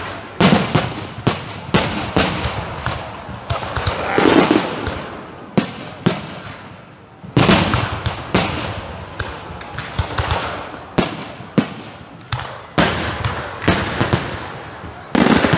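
Fireworks going off in quick, irregular succession: sharp bangs about every half second, many of them followed by crackling.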